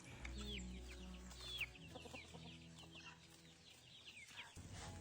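Chickens calling faintly: a run of short, high, downward chirps, two or three a second, fading out near the end.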